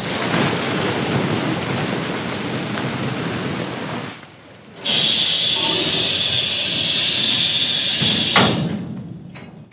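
Coal pouring from a self-discharging hopper wagon's open side flap into an unloading pit, a steady rushing rumble that stops about four seconds in. About a second later comes a loud hiss of compressed air from the wagon's pneumatic discharge-door gear, lasting some three and a half seconds before fading.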